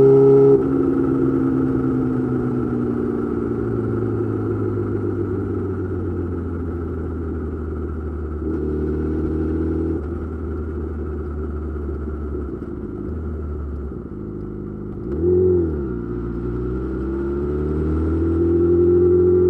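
Yamaha YZF-R6 inline-four running through an M4 GP slip-on exhaust. The throttle closes just after the start and the revs sink slowly as the bike slows. A quick throttle blip comes about fifteen seconds in, and the revs climb steadily near the end.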